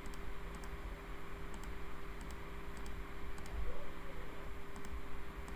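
Quiet computer mouse clicks at irregular intervals, some in quick pairs, as check boxes are ticked and unticked, over a low steady hum.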